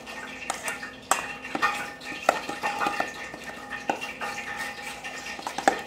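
Metal spoon stirring a thick curry spice paste in a stainless steel bowl, with irregular clinks and scrapes against the side of the bowl.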